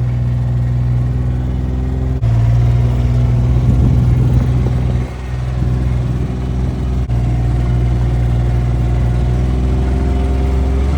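Side-by-side UTV engine running steadily as it drives through deep snow, its note rising slightly near the end.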